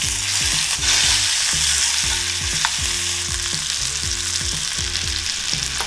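Corvina fillets sizzling steadily in butter and olive oil in a hot cast-iron skillet, getting louder about a second in as a turned fillet lands back in the pan.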